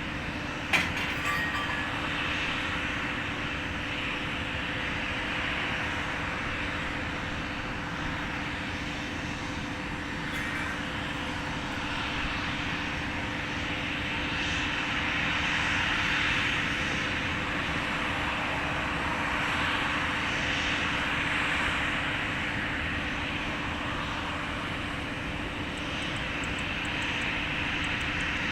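Jet airliner engines as a plane comes in to land: a steady rushing roar that swells twice in the middle, over a steady low hum. A single sharp click about a second in.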